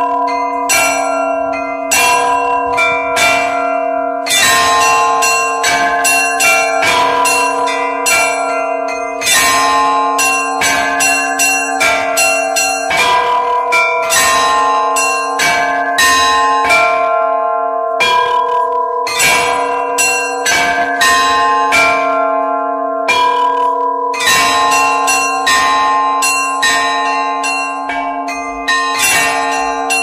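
Orthodox-style bell ringing (zvon) on a mixed set of three antique and five newly cast Ukrainian bells, the clappers pulled by ropes. Several strokes a second in a steady, unbroken pattern, over the lingering hum of the bells.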